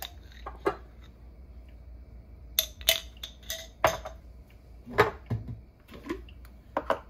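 Kitchen clatter: a string of sharp clinks and knocks as a spoon, seasoning jar and dishes are handled on a countertop, a few with a brief ringing note.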